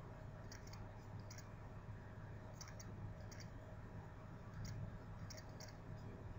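Faint clicks every second or so, many in quick pairs, over a low steady electrical hum.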